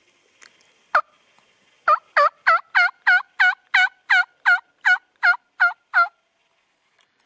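Wild turkey yelping: one call, then a run of about a dozen evenly spaced yelps at about three a second.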